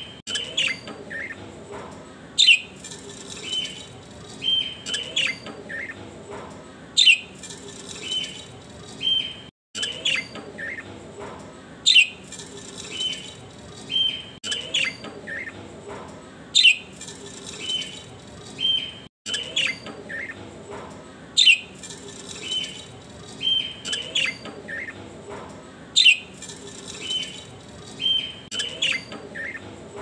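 Small birds chirping: sharp falling chirps and short high whistled notes, repeating in a very regular cycle about every four and a half seconds. The sound cuts out briefly twice.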